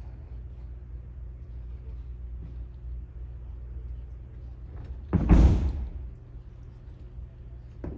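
A single heavy thud about five seconds in: an aikido partner's body slapping onto the mat in a breakfall as he is thrown. A low steady hum of the hall runs underneath.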